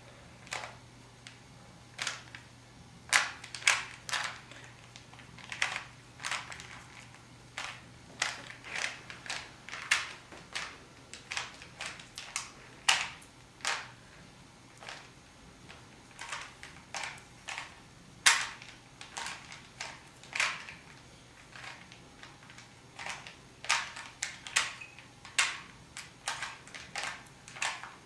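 Plastic Rubik's Cube being turned by hand: irregular clicks and clacks as the layers snap round, sometimes in quick runs of several turns, over a faint steady low hum.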